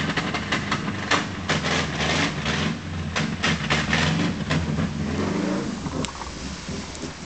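Subaru car engine revving unevenly, its pitch rising and falling, with a string of short bursts of noise over the first four seconds or so.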